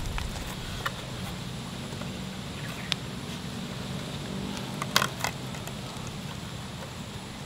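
Twine being wrapped and pulled tight around crossed wooden poles in a lashing: a few short clicks and scrapes of cord and hands on bark, the loudest a quick cluster about five seconds in, over a steady forest background.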